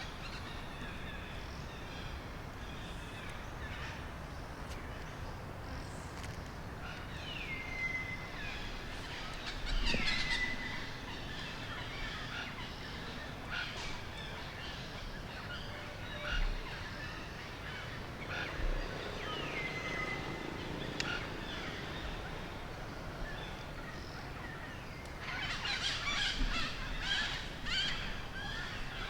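Forest ambience with birds calling: three whistled calls, each dropping in pitch and then holding, come at intervals over a steady background hiss, with scattered chirps and a busier spell of chirping near the end.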